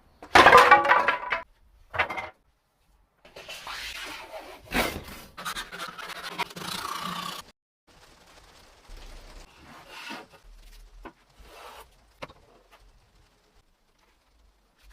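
Hand tools working pallet wood: a loud burst of scraping in the first second and a half, then a longer run of scraping and rasping strokes, and quieter rubbing strokes in the second half.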